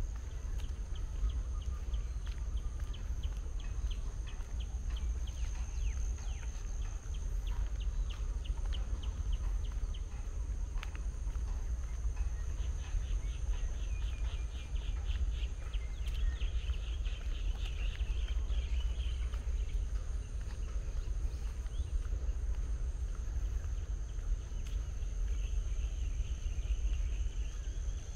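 Outdoor parkland ambience: a steady high-pitched drone with runs of rapid chirping, over a constant low rumble.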